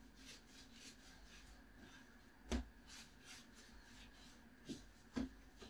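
Hands rolling bread dough on a floured countertop: soft, repeated rubbing swishes, about three a second, with a few short knocks of hands on the counter about halfway through and near the end.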